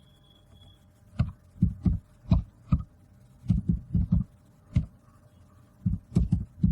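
Computer keyboard keys being typed in short, irregular runs of clicks, each with a dull thump.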